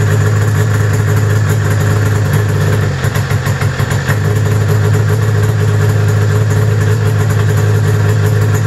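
1995 Arctic Cat ZR 700's two-stroke twin engine idling, running unevenly for a moment about three seconds in before it steadies. This is the intermittent putzing, as if running on one cylinder, that the owner traces to a faulty thumb-warmer element on the handlebar heater circuit.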